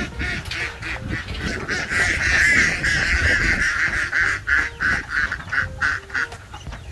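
Flock of domestic ducks quacking, a rapid run of short, repeated calls. They are densest and loudest about two to three seconds in, then come as separate calls toward the end.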